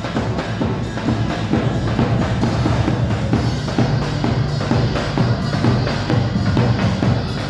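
Loud dance music with a steady drum-kit beat, bass drum and snare.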